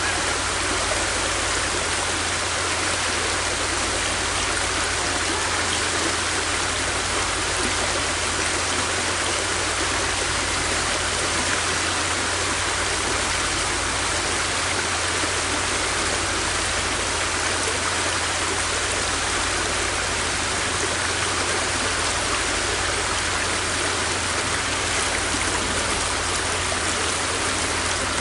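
River water flowing, a steady, even rushing with no breaks or changes.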